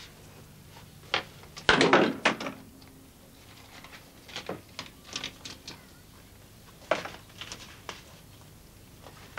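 A loud knock about two seconds in, followed by a short low ringing, then scattered light knocks and clicks of things being handled.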